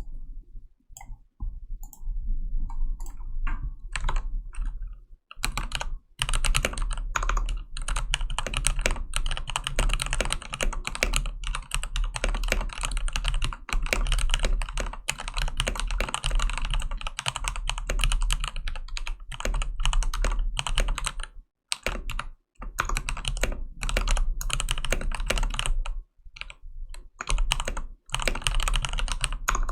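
Gigabyte K83 mechanical keyboard with lubed Cherry MX Red linear switches, lubed and band-aid-modded stabilizers and PBT keycaps, being typed on. A few single keystrokes at first, then fast continuous typing from about five seconds in, broken by a few brief pauses.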